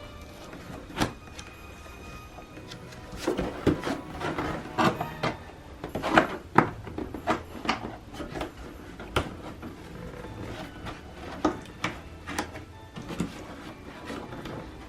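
Cardboard panels being handled, folded and their tabs pushed into slots: irregular scrapes, taps and knocks, busiest around the middle.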